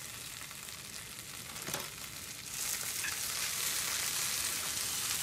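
Leafy greens sizzling in a frying pan, the sizzle growing louder about halfway through as they are turned with long cooking chopsticks; a single light tap just before.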